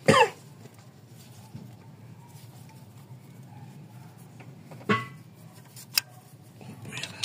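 Metal tools and small parts being handled: a loud clatter at the start, a ringing metallic clink about five seconds in, and a sharp click a second later, over a low steady hum.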